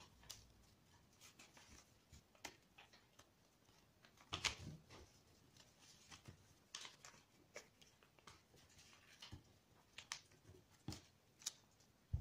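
Faint rustling and crinkling of coloured origami paper being folded and creased by hand, in scattered short sounds, the loudest about four and a half seconds in.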